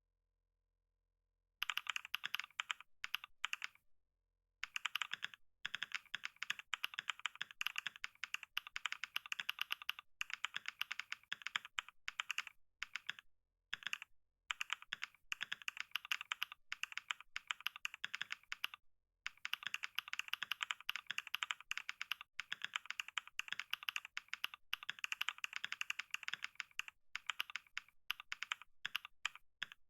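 Computer keyboard being typed on fast, a dense run of key clicks that starts about two seconds in and breaks off only for brief pauses.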